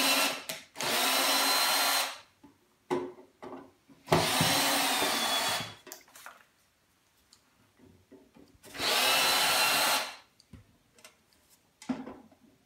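Cordless drill-driver spinning out tamper-proof screws from the side of a VCR's casing, in three runs of a second or two each. Light clicks and knocks come in the gaps between them.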